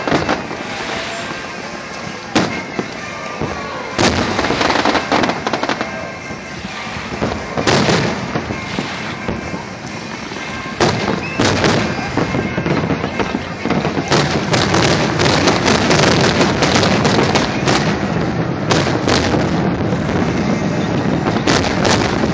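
Fireworks display: aerial shells bursting with sharp bangs at irregular intervals, thickening into a dense run of bangs and crackle in the second half.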